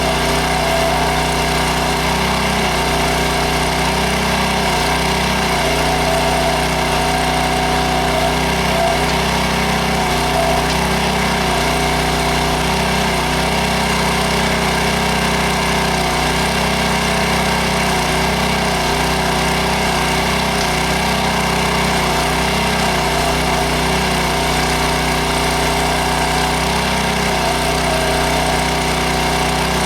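Small gasoline engine of a towable backhoe running steadily at working speed, its note shifting briefly every couple of seconds as the hydraulic controls are worked while digging.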